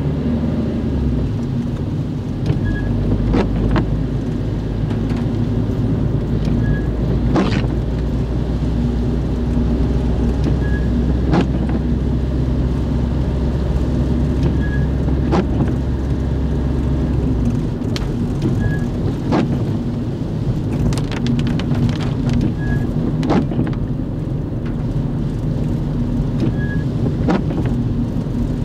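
Car interior noise while driving on a wet road in the rain: a steady low rumble of engine and tyres with rain on the windscreen and roof. A short click repeats about every four seconds, and the deepest rumble drops away about two-thirds of the way through.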